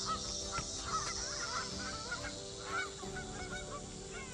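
A flock of geese honking, many short calls overlapping one another, as a dog chases them off.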